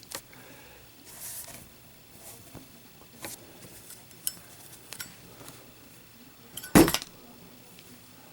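A metal Zippo lighter dropped onto a hard surface about seven seconds in, landing with a loud, brief metallic clatter, after a few faint clicks of it being handled.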